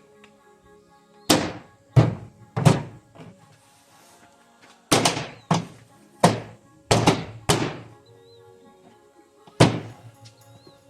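Repeated sharp thunks, about nine in loose groups, of the Escalade's liftgate trim panel being struck to knock its clips into place. Music plays in the background.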